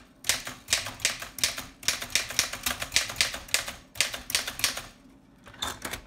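Densmore No. 4 upstrike typewriter being typed on in dual-space mode, each key stroke advancing the carriage two spaces. A quick run of sharp clacking key strikes goes on for about five seconds, then there is a short pause and a last couple of strikes near the end.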